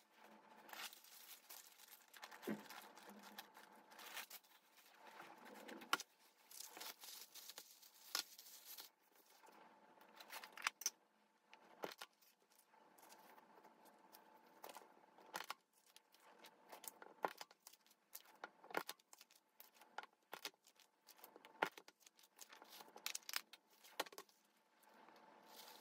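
Faint rustling and crinkling of thin white wrapping paper being handled and smoothed by hand, broken by scattered light taps and clicks.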